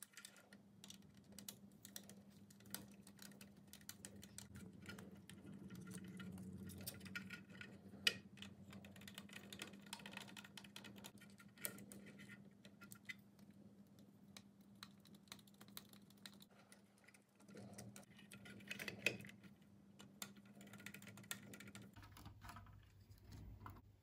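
Faint, irregular clicking and tapping of small hand work: a screwdriver and wire ends being worked into the screw terminals of a Meross MTS200 smart thermostat's plastic module. A low steady hum runs underneath and stops near the end.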